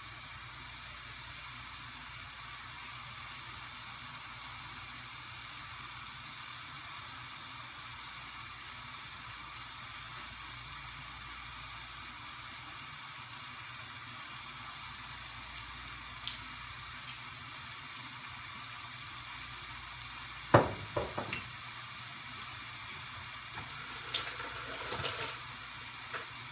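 Food sizzling steadily in a frying pan on a gas stove. A few sharp knocks come about twenty seconds in, with lighter clattering near the end.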